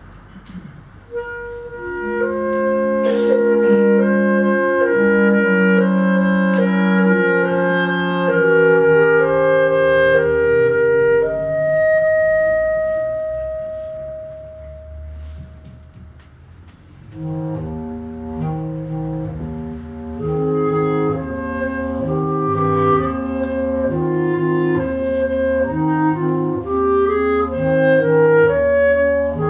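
Clarinet quintet, with a bass clarinet in the low part, playing classical music. The players come in about a second in, and a single long held note fades away around the middle. They then resume with a rhythmic passage over a pulsing low line.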